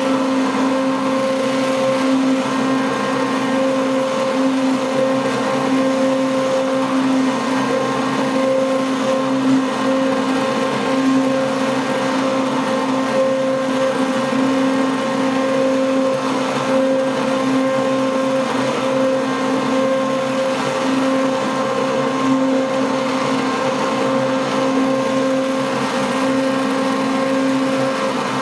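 Immersion stick blender running steadily in a slow cooker of cream soap batter: a constant motor hum as the batter is blended toward trace.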